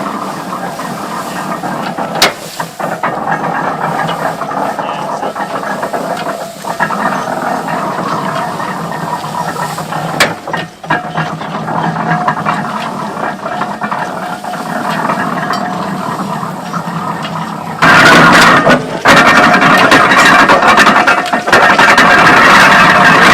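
1910 Burrell steam traction engine driving a 1936 Case hay baler: a steady mechanical running noise with rattles, clicks and steam hiss. About two thirds of the way through it suddenly gets much louder and fuller.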